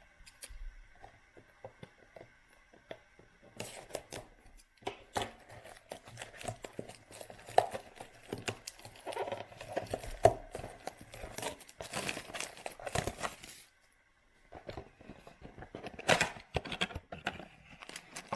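Cardboard trading-card blaster box being torn open and the card packs inside handled: irregular tearing, scraping and crinkling, with a short lull partway through.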